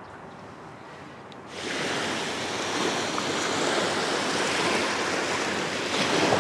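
Faint background for about a second and a half, then the steady wash of Black Sea surf breaking on a sandy beach.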